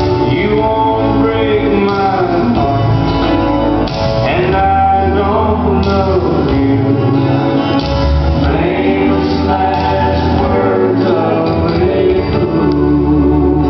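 Waltz music with a singing voice over sustained accompaniment.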